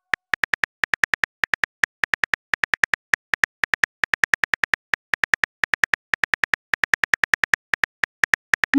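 Phone keyboard key-click sound effect ticking rapidly as a message is typed, about five clicks a second. At the very end a short rising swoosh sounds as the message is sent.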